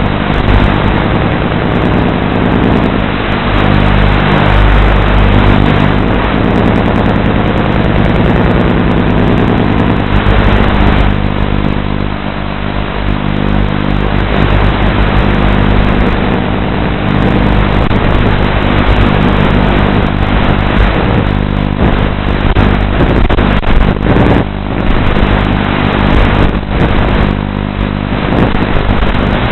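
The electric motor and propellers of a small radio-controlled aircraft, picked up by its onboard camera as a loud, steady buzz with a rushing noise over it. The pitch and loudness shift with the throttle and dip briefly about twelve seconds in.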